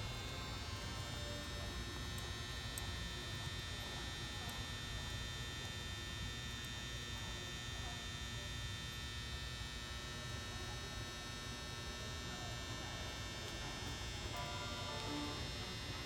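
A steady electrical hum with a low rumble beneath it and a faint high whine held on one pitch.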